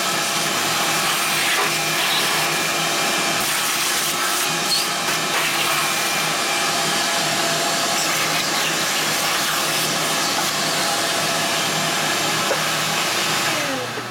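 Shop vacuum running steadily as its hose sucks machining chips off the aluminium knucklehead engine case, with a few faint clicks; the motor winds down with a falling whine near the end.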